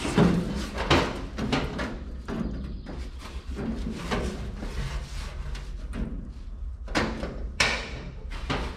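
Irregular metal clunks and knocks from a homemade steering column being test fitted as the steering wheel is turned back and forth, loudest near the start and about seven seconds in, over a steady low hum.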